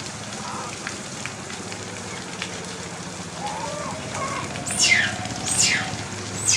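Steady rain falling, and near the end three loud, high cries in quick succession, each sliding sharply down in pitch: a baby macaque crying out in the rain.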